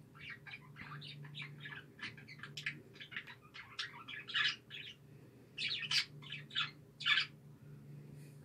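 A small bird chirping and chattering in a rapid, irregular series of short calls, louder in a few spurts, over a steady low hum.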